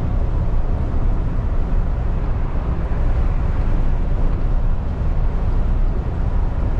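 Steady in-cab running noise of a MAN TGX lorry at motorway speed: a low rumble of engine and drivetrain with tyre and road noise off a wet road surface.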